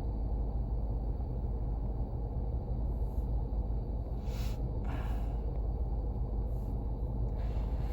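Jeep engine idling with a steady low rumble.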